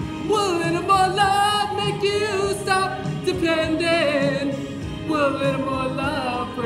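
Music: a song with a sung lead vocal, long notes held and sliding in pitch.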